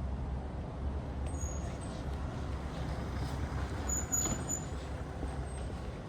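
Outdoor street ambience: a steady low rumble, with a few faint high-pitched tones about a second and a half and four seconds in.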